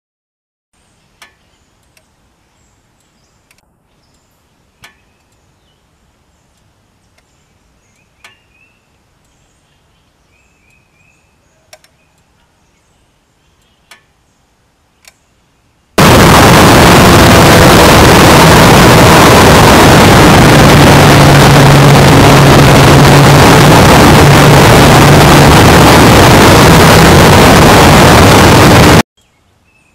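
Faint bird chirps and a few soft clicks over quiet air. About halfway through, a sudden, very loud, distorted rush of wind buffeting the microphone of a camera riding on a Yamaha FZR1000 motorcycle begins, with a steady low engine note underneath. It cuts off sharply near the end.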